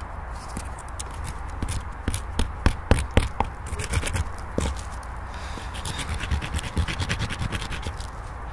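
Close handling noises: scraping, rustling and sharp clicks, loudest in a cluster about two to three seconds in, as a firecracker that won't stand steady is set upright by hand.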